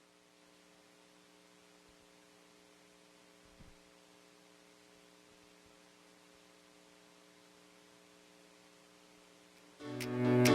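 Near silence with a faint, steady electrical hum. Music starts near the end.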